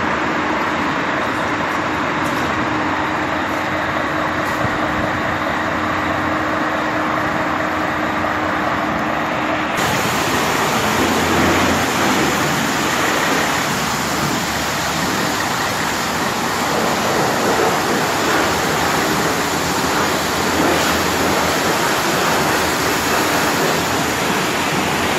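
Steady vehicle engine and traffic noise with a low hum for about the first ten seconds. It then switches abruptly to the loud, steady hiss of a pressure-washer wand spraying water against a box truck's panels.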